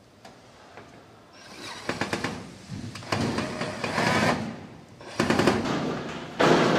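Cordless drill/driver driving screws into a steel locker's sheet-metal panel, in several bursts of a fast rattling whirr.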